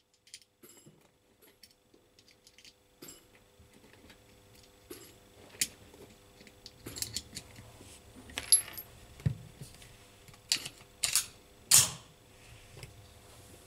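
Irregular sharp metallic clicks and clinks, like small metal parts knocking together, faint at first and louder in the second half, the loudest about twelve seconds in.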